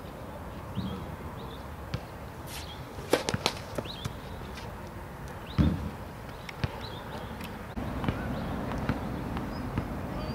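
Tennis ball bouncing on a hard court: a few sharp knocks a third of the way in, then a louder dull thump a little past halfway.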